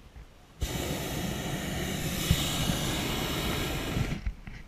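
Hot-air balloon's propane burner firing: one blast of rushing noise lasting about three and a half seconds, starting and cutting off sharply.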